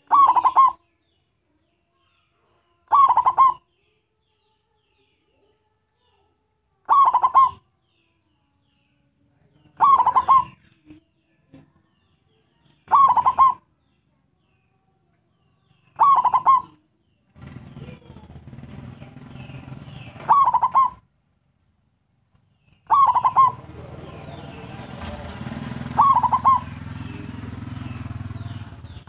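A local-type zebra dove (perkutut) giving its short, staccato cooing call nine times, one every three to four seconds. From about halfway on, a steady low rumble runs underneath the calls.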